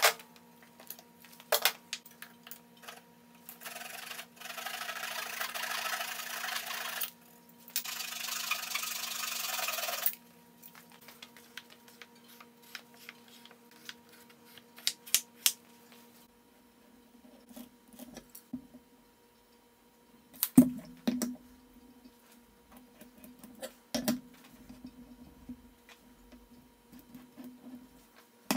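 Hand work on a wooden blank at a workbench: scattered clicks and knocks as a bar clamp and the wood are handled. About four seconds in comes a stretch of scraping or rubbing lasting a few seconds, and a second one about eight seconds in.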